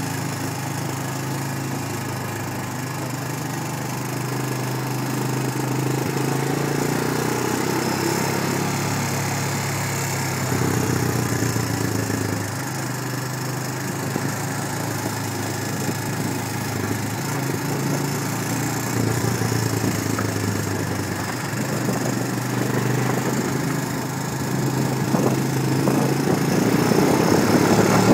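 Engine of the vehicle carrying the camera running steadily while driving, its pitch shifting a few times as it speeds up and slows, with road and wind noise; it gets louder near the end.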